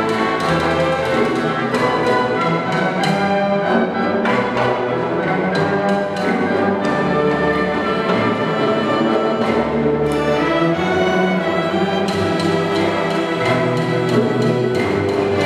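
String orchestra of violins, violas, cellos and double basses playing a classical piece: sustained bowed chords that change every second or so over a low bass line.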